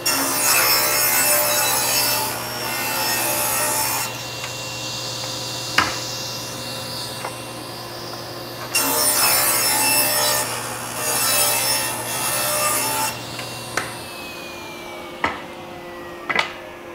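Table saw ripping thin strips off a board, with the blade guard still in place: two cuts of loud blade-through-wood noise, the first right at the start and the second about nine seconds in, over the saw's steady running hum. About fourteen seconds in the saw is switched off and winds down with a falling whine, with a few knocks of wood on the table.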